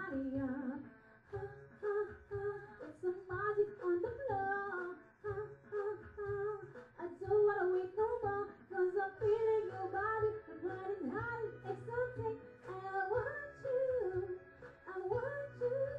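Dance-pop music with a bass beat pulsing in a regular rhythm under a woman's voice singing and humming the melody.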